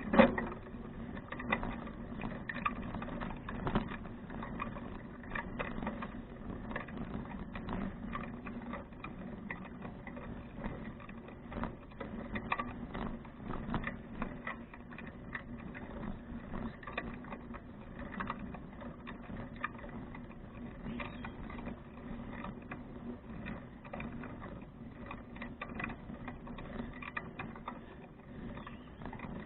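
2012 Fuji Touring bicycle rolling along: a steady hum with constant light rattling and ticking from the bike as it rides over the surface, and one hard knock right at the start.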